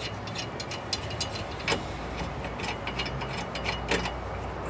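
Hand socket ratchet clicking in quick, uneven runs as a nut is backed off a bolt on a steel jack-mount bracket, with two louder metallic knocks, one a little under two seconds in and one near the end.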